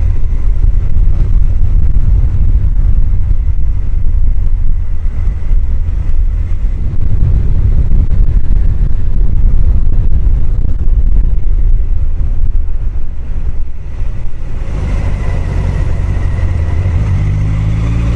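Heavy wind buffeting on a helmet-mounted microphone, over the running inline-four engine of a Honda CBR1000F motorcycle. About fourteen seconds in the wind eases and the engine note comes through clearly, rising in pitch near the end as the bike accelerates.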